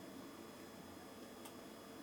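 Quiet room tone: a faint steady hiss and hum, with one faint click about one and a half seconds in.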